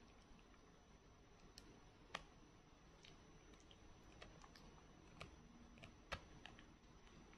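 Faint, irregular plastic clicks and taps from a TV remote being bitten and pawed by a baby monkey, its buttons and casing clicking; the sharpest clicks come about two seconds in and about six seconds in.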